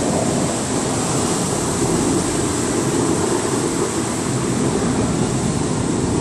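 Bellagio fountain water jets and spray falling back into the lake: a steady rush of water.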